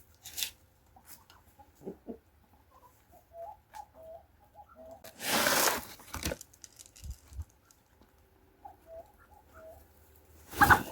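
Chickens clucking softly in short, scattered calls. About five seconds in comes a loud burst of rustling, and near the end a sharp knock.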